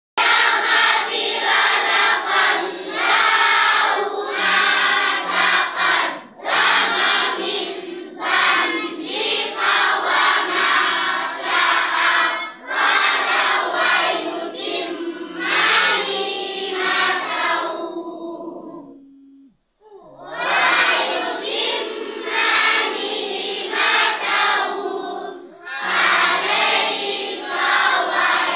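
Group of children chanting a Quranic recitation together, in long phrases with brief breaks for breath. It fades out about two-thirds of the way through, then starts again.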